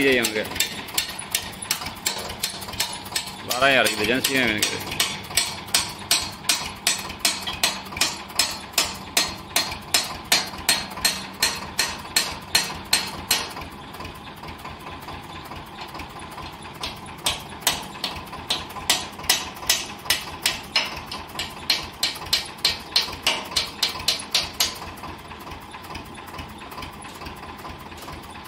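Hand hammers striking the steel parts of a Cat 424B backhoe loader's boom mounting, quick even blows about two to three a second. They come in two long runs, with a pause of a few seconds about halfway.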